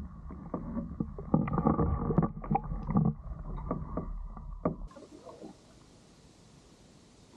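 Canoe on the water: irregular knocks and thumps of paddles and gear against the hull over a low rumble, all sounding dull and muffled. About five seconds in it cuts to a faint steady hiss.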